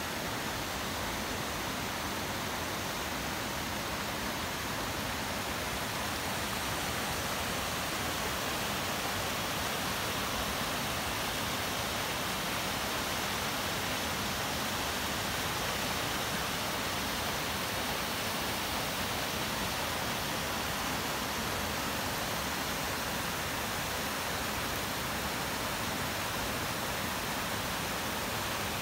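Small snowmelt stream rushing steadily over rocks and through gaps in the snow, an even, unbroken watery hiss.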